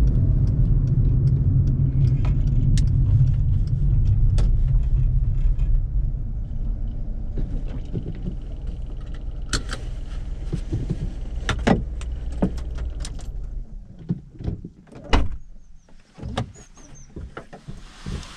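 Volkswagen Fox's 1.2-litre three-cylinder petrol engine running at low speed, its hum dying away about three-quarters of the way through. Scattered sharp clicks and knocks follow, the loudest a few seconds before the end.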